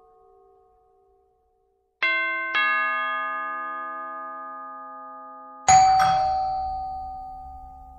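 Bell-like chime tones struck in two ding-dong pairs, about two seconds and about six seconds in, the second pair louder. Each note rings on with several steady overtones and slowly fades.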